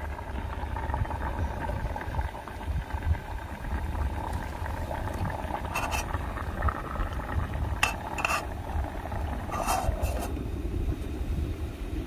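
Metal lid of a camping cook pot clinking as it is lifted off and set back on a pot of cooked rice on a portable gas stove: a few light clinks between about six and ten seconds in, over a steady low rumble.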